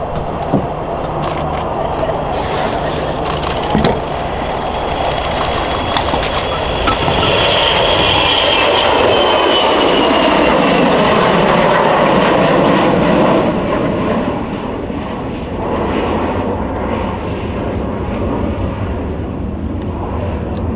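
Bombardier Global 6500 (Saab GlobalEye) twin-turbofan jet departing at takeoff power. The engine noise swells about seven seconds in, with a high whine that falls in pitch as it passes, then drops back after about thirteen seconds.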